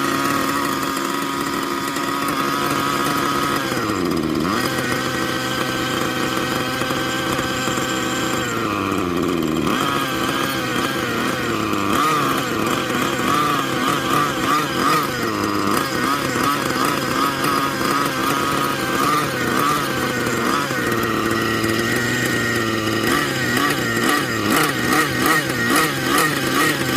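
Nitro glow engine of a T-Rex 700N RC helicopter running on the ground, a high buzzing engine note. Its pitch drops twice in the first ten seconds, then rises and falls in quick waves as the throttle is worked.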